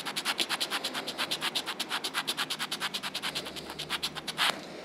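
Nail buffer block rubbed briskly back and forth over a natural fingernail, about nine quick scratchy strokes a second, buffing the nail plate in preparation for gel polish. The strokes stop shortly before the end with one louder stroke.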